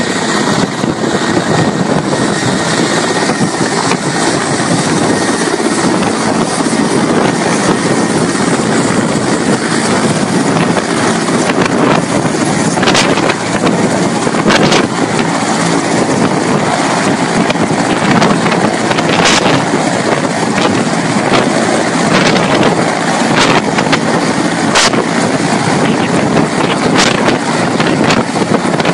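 Mil Mi-17 military transport helicopter running close by, its twin turboshaft engines whining and its main rotor beating in a loud, steady roar, with rotor downwash buffeting the microphone. A few brief crackles stand out at intervals.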